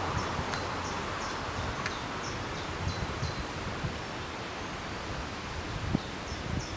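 Outdoor ambience of wind rustling through leaves over a low rumble. A small bird calls with short, high, repeated chirps, several in the first couple of seconds and a quicker run near the end.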